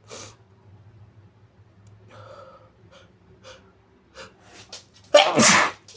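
A person sneezing once, big and loud, near the end, after a few short quiet breaths as the sneeze builds.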